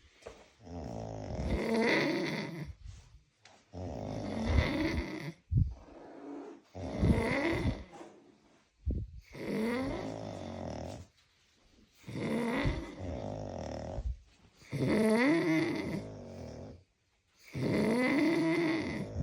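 Two men snoring in sync, about seven snores, one every two and a half seconds, with quiet breaths between them.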